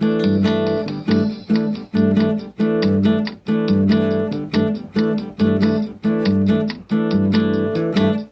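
Acoustic guitar music: rhythmic strummed chords, about two strokes a second.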